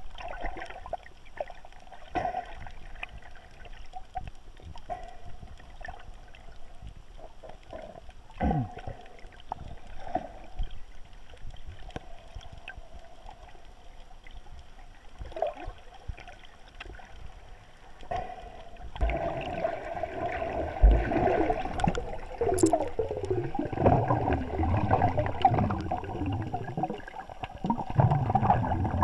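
Muffled underwater water noise picked up by a submerged GoPro: a steady gurgling hiss with scattered sharp clicks, growing louder and more churning with wavering bubbling about two-thirds of the way through.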